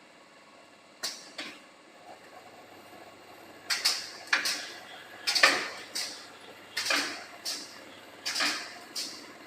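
Automatic wire-mesh welding machine cycling: sharp mechanical clacks, each with a short hissing tail. Two come about a second in, then from about four seconds they repeat in pairs roughly every second and a half.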